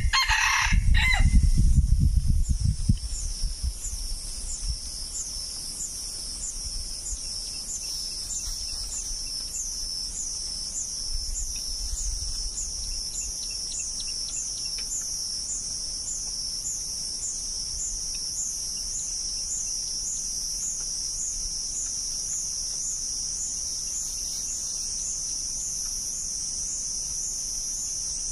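A red junglefowl rooster crows once, briefly, right at the start, over low rumbling that fades within a few seconds. After that, a steady high-pitched insect chorus pulses at about one and a half beats a second.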